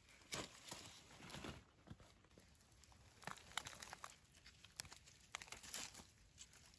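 Faint, irregular crackling and rustling of dry leaves and twigs, as from someone moving through or handling leaf litter.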